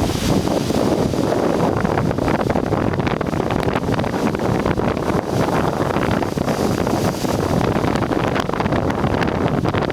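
Strong wind buffeting the microphone, a steady loud rushing rumble, over waves breaking on a rocky shore.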